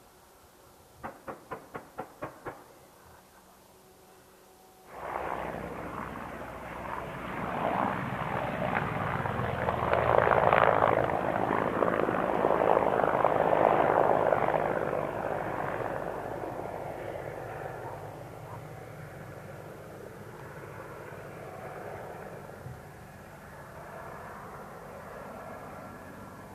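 Mi-24P attack helicopter live firing: a quick string of seven sharp reports, then about five seconds in a sudden rushing roar that swells over several seconds and slowly fades into a steady drone.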